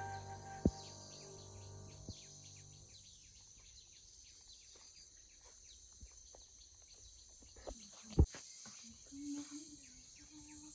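Night insects such as crickets chirping faintly in rural fields, with many short high chirps over an even background hiss. Background music fades out in the first three seconds, and there is one sharp click about eight seconds in.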